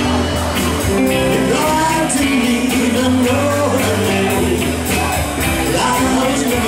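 Live rock and roll band playing: electric bass, electric guitars and drums, with a steady drum beat.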